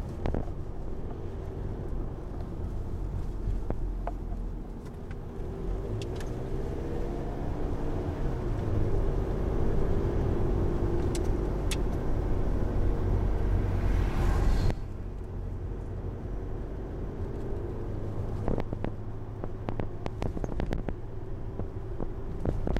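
Inside a moving car: steady engine and tyre rumble. It grows louder through the middle, then drops suddenly about two-thirds of the way through to a quieter, steady rumble.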